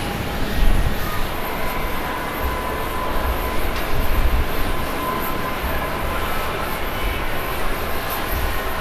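Jet airliner engines at takeoff power: a steady rumble with a faint high whine.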